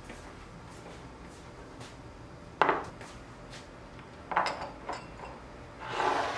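Small ceramic bowls and sauce dishes being set down on a table, clinking against it: one sharp clink about two and a half seconds in, a few more a little later, and a short scrape near the end as a bowl is slid into place.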